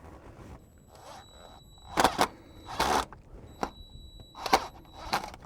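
Impact driver run in about six short trigger bursts, driving screws into the old pilot shaft seal to get a grip on it for pulling it out, with a thin high whine between the bursts.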